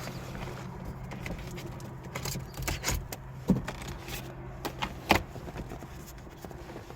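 Scattered light clicks and knocks from the car being handled, with two sharper knocks about three and a half and five seconds in, over a steady low hum.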